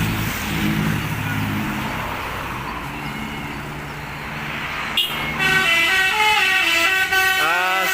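Road noise from passing traffic. About five seconds in, a bus telolet horn starts playing a tune: loud multi-tone horn notes that step from pitch to pitch, with a few sliding notes near the end.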